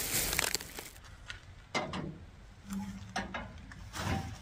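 Steel bear-proof garbage bin being opened and used: several sharp metal clanks and knocks from its latch and lid as garbage goes in.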